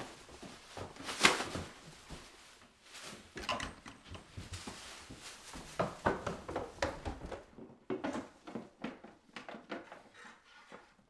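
A run of irregular knocks, clicks and clatters of objects being handled, the loudest sharp knock about a second in, easing off near the end.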